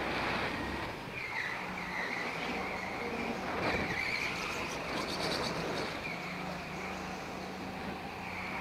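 Go-kart running at speed: a steady motor whine whose pitch dips and rises a few times, over a constant noise haze.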